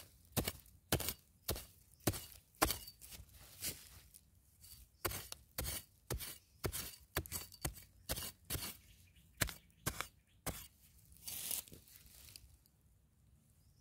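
Hand digging tool chopping into dry, hard soil: a run of sharp, irregular strikes about two a second, with a longer scraping rush of loose soil about eleven seconds in.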